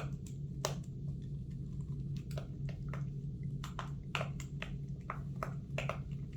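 Silicone pop-it bubbles on a fidget spinner being pressed, a run of small irregular pops over a steady low hum.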